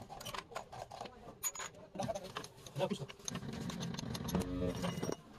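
Indistinct voices with scattered clicks and clinks, and a denser low noise during the second half that stops shortly before the end.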